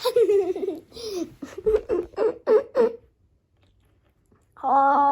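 A child's high-pitched giggling for about three seconds, ending in a quick run of short laughs, then a pause and a held sung note near the end.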